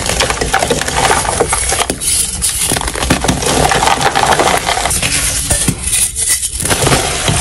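Blocks and loose powder of dyed gym chalk being crushed and crumbled by hand, sped up to double speed: a dense run of crunching and crackling full of small clicks as the chalk breaks and the powder is squeezed.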